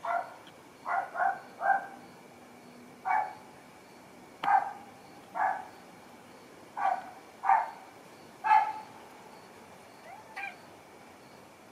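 A dog barking: about a dozen short, sharp barks at irregular intervals, some coming in quick runs of two or three, with a softer one near the end.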